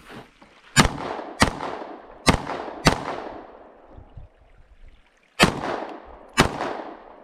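Pistol shots fired in pairs: two quick double-taps about half a second apart within each pair, a pause, then two more shots about a second apart near the end. Each shot ends in a short, decaying echo.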